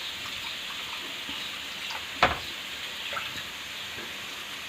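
Curry masala paste sizzling steadily in a hot pan, with one sharp knock a little past halfway.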